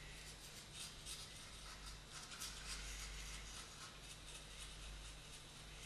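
Faint scratching of a fine brush working varnish into carved openwork wood, in soft irregular strokes over a low steady hum.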